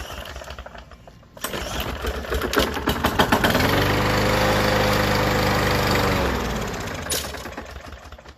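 Small walk-behind lawn mower engine catching, running steadily for a few seconds, then slowing and dying. It is running only on a shot of primer fuel, with no good fuel in the tank, so it stalls once the prime is used up.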